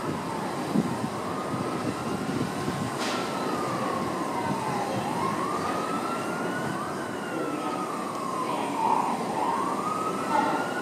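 A street siren wailing, its pitch rising and falling slowly about every four to five seconds, over the steady rumble of an R62A subway train on elevated track. There is a single sharp clank about three seconds in.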